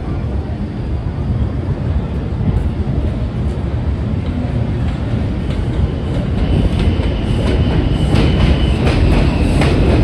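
New York City subway train running, a heavy steady rumble that grows louder in the second half. A thin high whine joins it for a couple of seconds, and short clicks of wheels crossing rail joints come near the end.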